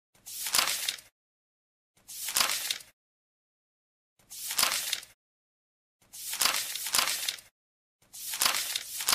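Five separate bursts of harsh, clicky noise, each about a second long, with dead silence between them: edited-in destruction sound effects.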